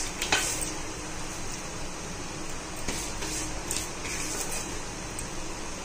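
A few soft taps and rustles of fried onions being scattered over the rice in a kadai, over a steady background hum.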